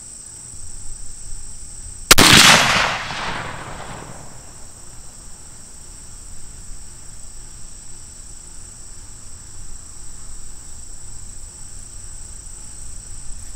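.308 bolt-action rifle fired once about two seconds in, a single sharp shot at a steel plate, its echo dying away over about two seconds.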